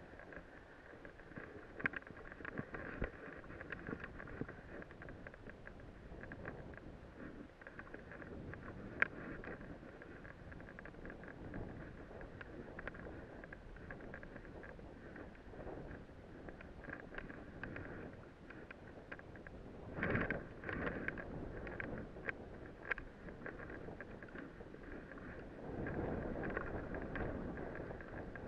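Sliding down a slope through powder and chopped snow: a steady scraping hiss of snow under the rider, with scattered clicks and knocks and some wind on the microphone. It grows rougher and louder for a moment about two thirds of the way through and again near the end.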